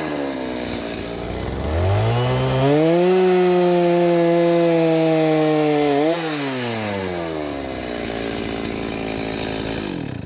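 Two-stroke chainsaw idling, revving up about two seconds in and holding high revs with the pitch sagging slightly as it cuts through a dry oak log, then falling back to idle after about three seconds. The sound cuts off suddenly at the end.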